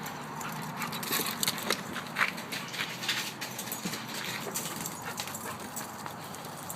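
Puppies playing on dry, dusty ground: a flurry of quick scuffling and scratchy clicks from paws, with small dog whimpers. It is busiest about one to three seconds in.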